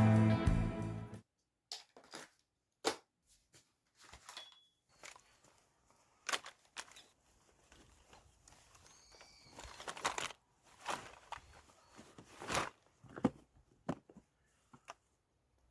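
Background music cutting off about a second in, followed by sporadic faint rustles, clicks and taps at irregular intervals.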